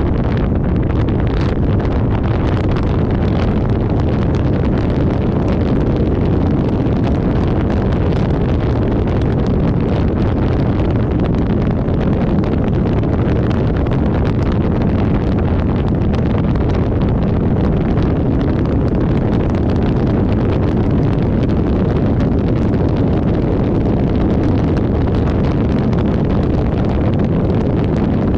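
Steady wind rumble on the microphone of a camera mounted outside on a Dodge Ram 3500 pickup's hood, mixed with the truck's running noise as it drives a gravel dirt road.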